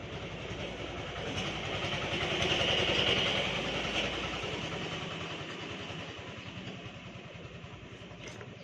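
A motor vehicle's engine passing by, growing louder to a peak about three seconds in and then slowly fading away.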